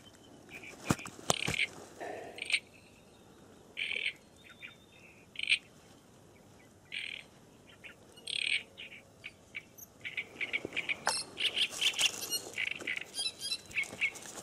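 Small birds chirping in short, scattered notes, growing busier in the last few seconds, with a few sharp handling clicks about a second in.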